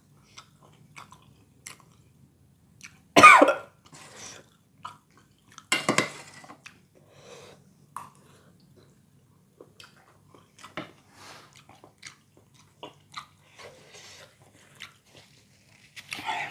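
Close-up eating of spicy bakso Malang meatball soup with noodles: chewing and mouth sounds with many small clicks, and two loud short bursts about three and six seconds in. A faint steady low hum runs underneath.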